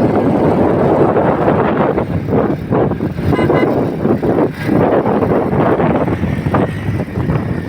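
Loud, steady noise of a motor vehicle on the move, with a few short high beeps about halfway through.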